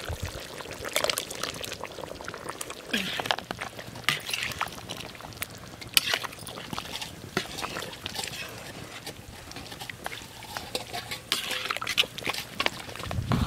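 Coconut milk poured into a pot of chicken curry, which then bubbles and pops irregularly as it simmers in an iron kadai over a wood fire.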